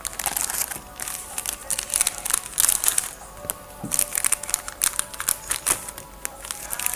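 Plastic card sleeves and pocket pages crinkling and crackling as trading cards are handled and set down, in a dense run of small irregular crackles and clicks.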